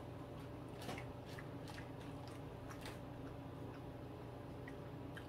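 Quiet eating sounds at a dinner table: scattered light clicks of tableware and faint chewing over a steady low hum.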